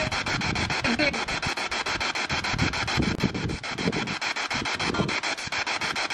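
P-SB7 spirit box sweeping through radio stations: hissing static chopped into rapid pulses about six a second, with brief fragments of broadcast sound.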